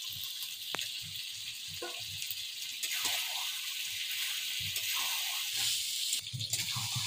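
Chicken and fried potato pieces sizzling in a metal kadai, with a steady frying hiss, as the potatoes are tipped in and stirred with a metal spatula, which scrapes and knocks against the pan now and then.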